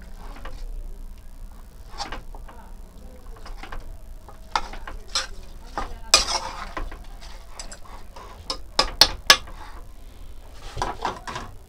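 Metal spoon stirring and scraping raw pork, dried chillies and tomato in an aluminium pot, with irregular clinks of the spoon against the pot. A longer scrape comes about six seconds in, and three sharp clinks in quick succession about nine seconds in.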